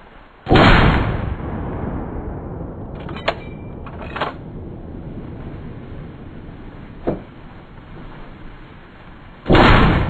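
Herd of wild boar running through dry leaf litter, a steady rustle, broken by two loud sudden bangs, one about half a second in and one near the end, each dying away over about a second, with a few light clicks between.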